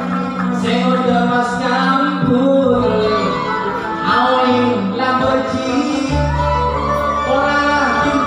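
Live gambus music: a man sings comic pantun verses into a microphone over the band, with long held bass notes beneath the voice.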